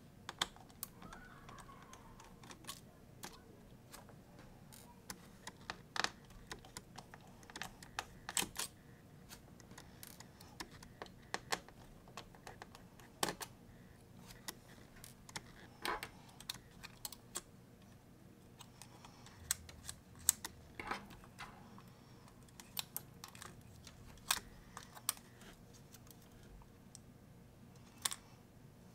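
Scattered light clicks and taps at an irregular pace, from small repair tools and fingers working on an opened laptop's metal parts, screws and connectors.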